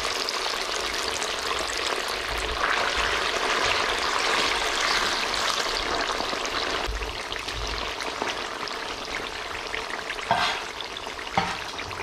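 Small masala-coated fish deep-frying in a wok of hot oil, a steady sizzling and bubbling; the fish are still frying and not yet done. A spatula stirs them, and a couple of short knocks come near the end.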